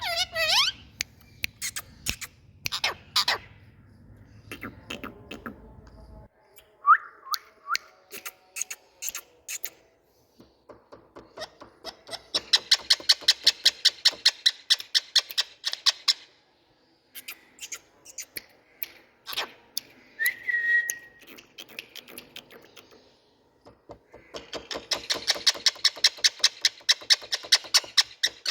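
Indian ringneck parakeet calling: scattered chirps and short whistles, including a quick rising whistle about seven seconds in, and twice a long run of rapid clicking chatter lasting several seconds.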